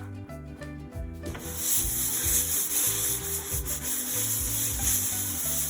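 Sanding, a steady scratchy rubbing that starts about a second and a half in, over background music with a bass line.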